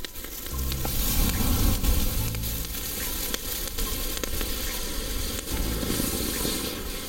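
Firework fountain spraying sparks with a steady loud hiss and scattered crackles.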